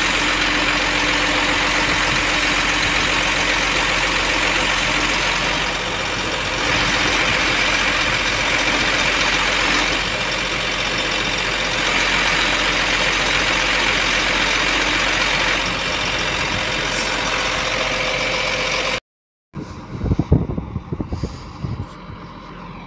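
Iveco boom truck's engine running with the PTO engaged, driving the crane's hydraulic pump as the knuckle boom is lowered and folded: a loud, steady mechanical drone with a whine. About 19 seconds in, after a brief dropout, it is quieter engine running with a few knocks.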